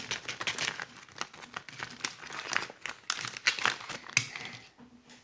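Jigsaw puzzle packaging crinkling and rustling in the hands as the puzzle is opened, with scattered small clicks. It tails off near the end.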